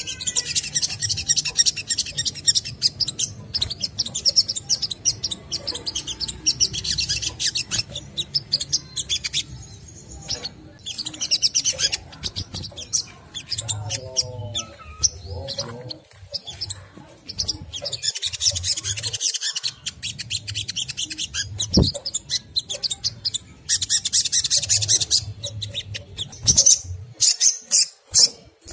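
Sunbird (sogon) giving rapid, high-pitched chattering trills in long bouts with short pauses, over a low hum.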